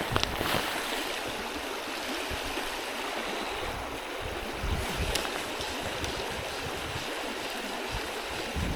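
Steady rushing of a small creek running high and muddy after rain and snowmelt, with a couple of faint knocks about five seconds in.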